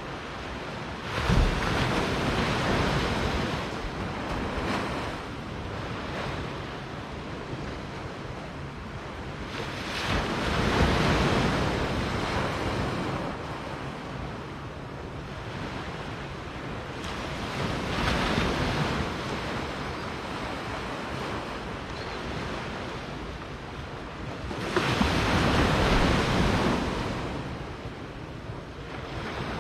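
Gentle surf on a sandy beach: small waves wash in and swell up four times, roughly every seven or eight seconds, over a steady hiss of the sea.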